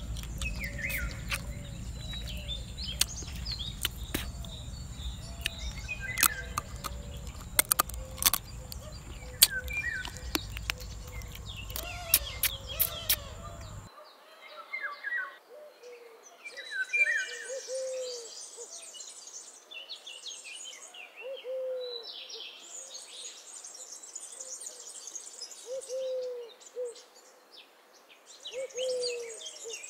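Birds calling: a low hooting call repeats every second or two throughout, under higher chirps and trills. For the first half, wind rumbles on the microphone and sharp clicks cut through, and both stop suddenly about fourteen seconds in.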